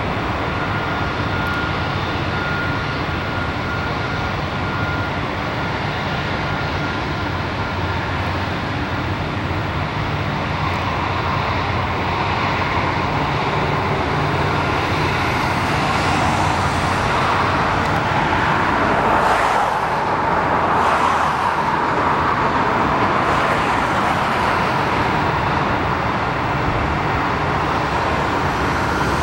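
Airbus A380's four Engine Alliance GP7200 jet engines running at low thrust as the aircraft moves slowly on the runway: a steady rushing hum, with a whine that swells about halfway through.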